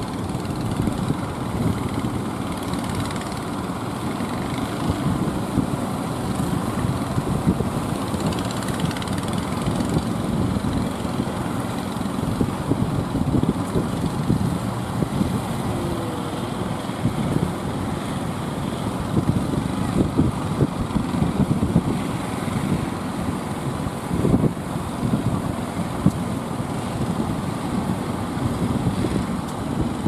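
Engines of motorised outrigger fishing boats running hard as the boats push out through breaking surf, over the steady rush of waves.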